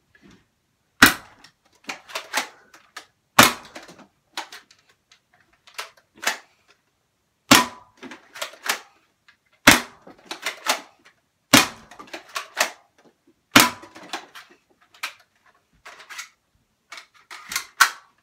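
Adventure Force Aeon Pro spring-powered foam dart blaster firing half-length darts, about seven sharp snaps a few seconds apart. Between shots come the plastic clicks and rattles of it being primed by hand.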